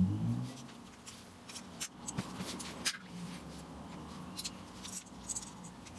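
Small metal turntable motor parts and a screwdriver being handled, with scattered light clicks and ticks. A brief louder low sound at the very start.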